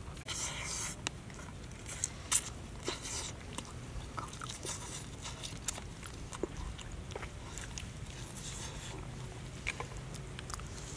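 Close-up eating of roasted chicken: pieces bitten into and chewed, with irregular crunches and clicks and a few brief rustling bursts.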